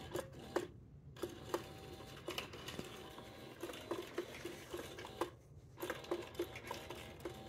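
Faint irregular clicking and a light whir from a motorised whack-a-mole cat toy running, its feather wand popping in and out of the holes in the box.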